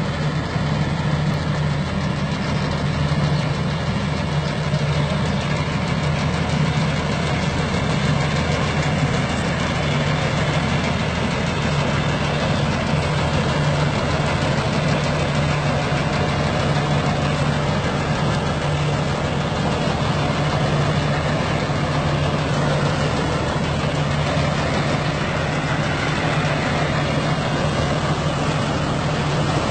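John Deere 5045D tractor's three-cylinder diesel engine running steadily under load, driving a tractor-mounted mini harvester as it cuts and threshes standing crop.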